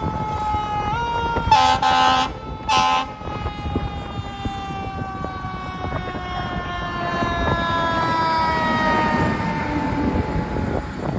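Fire engine responding: two short air-horn blasts about a second and a half in, over a siren whose single tone winds slowly down in pitch, with the truck's engine running underneath.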